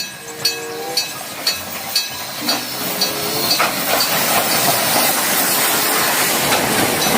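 Steam train sound effect: regular chuffs about two a second, two short whistle tones in the first few seconds, then a steam hiss that swells and carries on.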